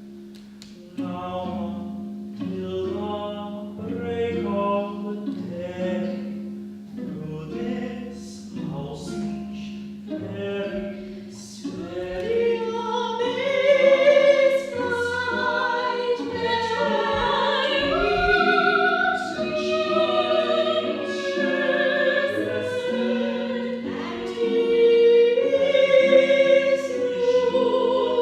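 Classical music: short instrumental notes over a held low note, joined about twelve seconds in by voices singing in an operatic style with vibrato, growing louder.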